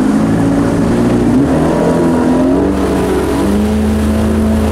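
Bass boat's outboard motor running under way, its pitch shifting up and down, with wind and water noise.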